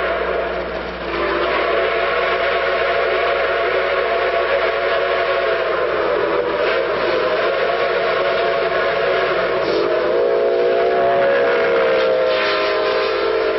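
Steam whistle of the Reading 2101 steam locomotive blown in one long blast, several tones sounding together as a chord over a hiss of steam. The chord shifts slightly in pitch about ten seconds in.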